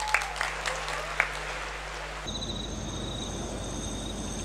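Faint, scattered clapping from an audience, with a few sharp claps in the first two seconds. About two seconds in it gives way to a steady low background with faint constant high-pitched tones.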